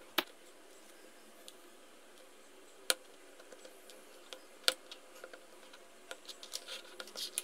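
Sharp, separate clicks as the pins of jumper wires are pushed into a plastic breadboard and the Arduino Uno's header sockets: three louder clicks, then a run of small clicks and taps from handling the wires near the end.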